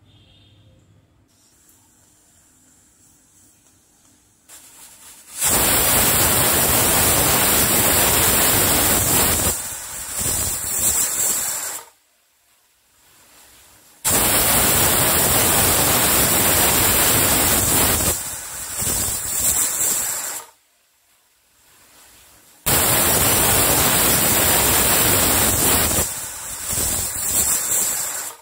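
Pressure cooker whistling three times, each a loud hiss of steam forcing past the weighted vent for about six seconds, wavering before it cuts off. The three whistles are the signal that the dal and vegetables inside are cooked.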